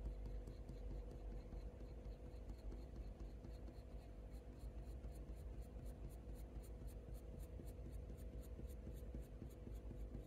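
Faber-Castell Polychromos coloured pencil scratching short flicking strokes onto hot-press watercolour paper, laying in fur. It is faint, with quick light strokes that come about four a second in the second half.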